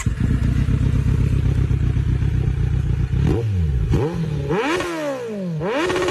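Kawasaki Z900's inline-four engine through an aftermarket SC Project exhaust, idling loud and lumpy, then blipped three times, the revs rising and falling quickly each time, the second blip the biggest.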